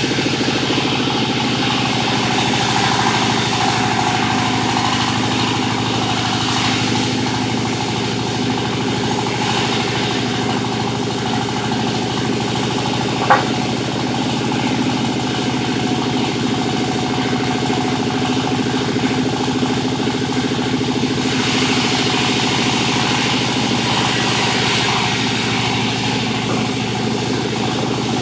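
Sawmill machinery running steadily, its engine drone constant, with a high hiss swelling in stretches, longest about three-quarters of the way through, as the saw cuts jabon wood. A single sharp click about halfway through.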